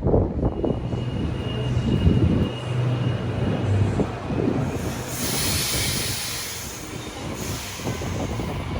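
Sydney Trains electric double-deck passenger train moving at the platform, with a low motor hum over the first few seconds and a high hiss from about five seconds in that lasts a couple of seconds.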